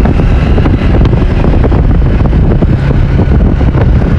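Wind rushing over the microphone of a moving motorcycle, with its engine running steadily underneath.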